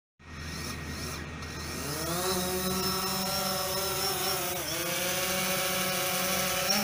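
DJI Phantom 4 Pro quadcopter's four propellers buzzing with a high whine. The pitch rises over the first couple of seconds as the motors speed up, then holds steady as it hovers, with a brief dip about halfway through.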